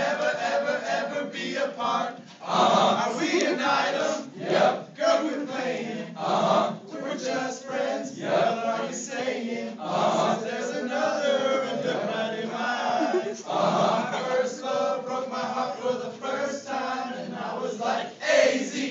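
A large group of young men singing a serenade together, in long phrases with short breaks between lines.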